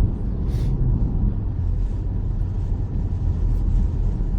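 Steady low rumble of a car's engine and tyres on the road, heard inside the cabin while driving, with a brief hiss about half a second in.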